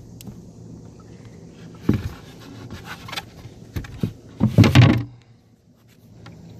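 A 5/8-inch plywood board knocking and scraping against the boat's seats and ledges as it is lowered into the bow footwell gap, a sharp knock about two seconds in and the loudest cluster of thumps about four and a half seconds in as it drops into place.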